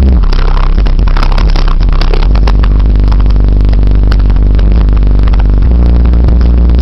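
Two 15-inch Kicker CVX subwoofers, driven by a 5500-watt amplifier, playing very loud deep bass heard from inside the car. The low bass note shifts a couple of times.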